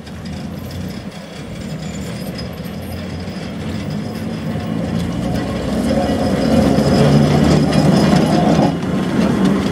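Small narrow-gauge diesel shunting locomotive running, its engine hum growing steadily louder as it comes up close, with a light rattle of its running gear on the track.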